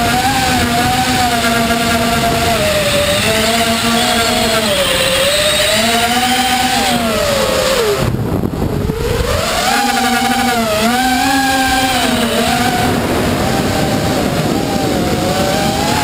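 Radio-controlled model airplane's motor and propeller, heard from a camera on board, its pitch rising and falling as the throttle is worked. About eight seconds in the pitch drops and the drone cuts out briefly before spooling back up, with wind rushing past underneath.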